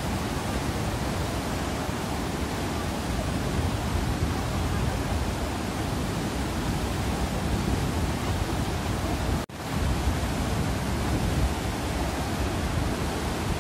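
Fast-flowing Spiti River whitewater rushing over rocks in a steady, full roar. The sound cuts out for an instant about two-thirds of the way through, then carries on.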